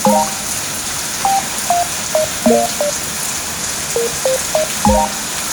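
Background music: a short melody of quick plucked notes repeating, with a deep drum hit now and then, over a steady hiss.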